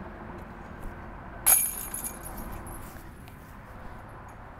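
A disc striking the hanging chains of a disc golf basket: one sudden metallic jangle about a second and a half in, ringing on for about a second as the chains settle.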